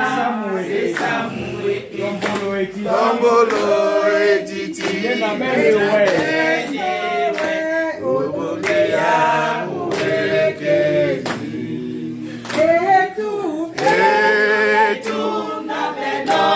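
A group of voices singing together unaccompanied, with hand-clapping keeping time.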